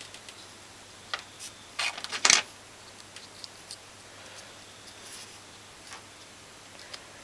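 Small parts of a dismantled starter relay clicking and tapping as they are handled and fitted together by hand: a few sharp clicks, the loudest a quick cluster about two seconds in, then only faint ticks.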